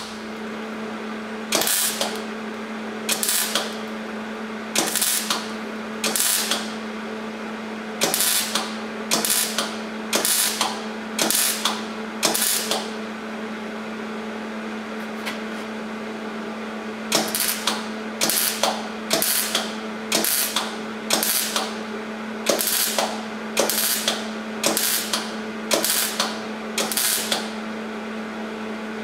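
MIG welder stitch-welding a steel patch panel into a rusted-out truck fender. The arc crackles in short bursts of about half a second, roughly one a second, over a steady hum. The bursts pause for a few seconds midway.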